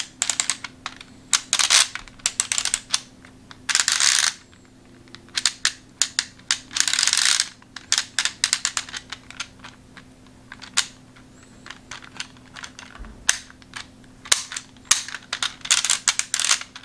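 Plastic discs of a Brainwright TwinSpin rotating-disc puzzle being twisted by hand: runs of quick clicking, some of them dense, broken by pauses with a few single clicks.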